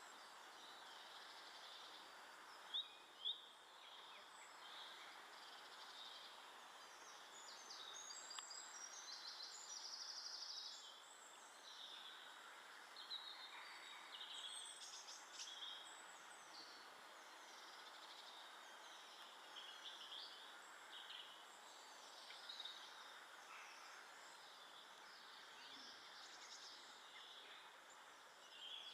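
Faint garden birdsong: many short chirps and trills from small birds over a steady background hiss, with two sharp taps about three seconds in.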